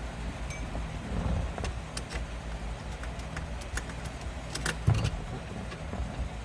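Scattered small metallic clicks and clinks of horn button parts being handled and taken apart, with a sharper knock about five seconds in, over a steady low hum.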